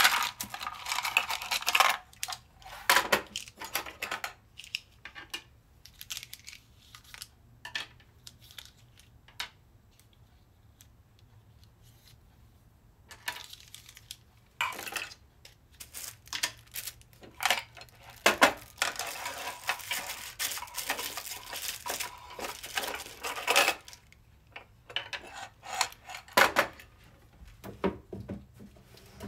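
Plastic diamond-painting drill pens clicking and clattering together as they are lifted out of a wooden box and handled, with plastic bags rustling, in scattered bursts with quiet gaps.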